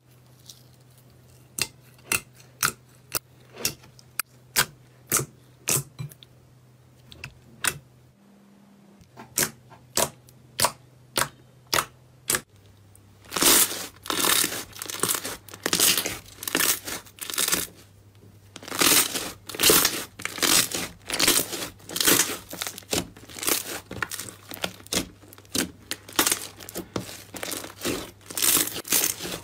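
Slime being handled with no talking: sharp sticky pops and clicks about twice a second at first, then, about halfway through, louder and denser crackling, crunching bursts.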